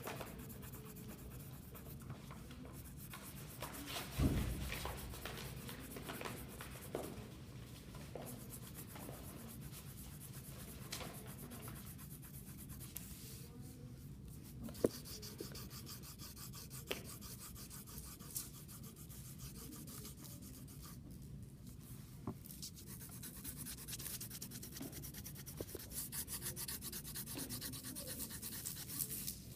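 Pencil lead scratching and rubbing back and forth on folded paper lying on a wooden desk, with one thump about four seconds in and a few light ticks later; the scratching gets busier near the end.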